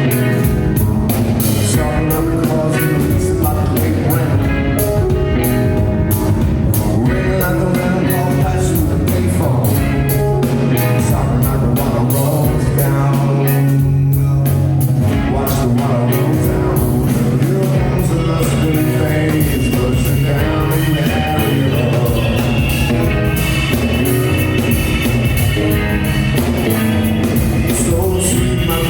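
Live rock band playing: singing over guitar, drums and a strong, steady deep bass line.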